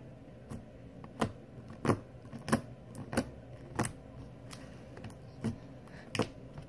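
Very sticky homemade slime being poked over and over with a finger, a sharp sticky click or pop with each poke, about one every two-thirds of a second.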